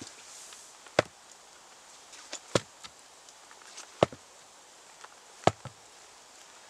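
A heavy log round used as a mallet, knocking down onto the top of a wooden stake to drive it into the ground: four hard wooden knocks about a second and a half apart, some followed by a lighter knock.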